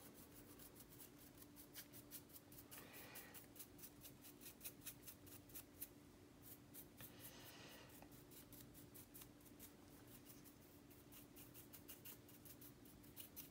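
Faint, quick scratchy strokes of a stiff flat brush dusting loose weathering pigment off a painted plastic model part. A low steady hum sits underneath.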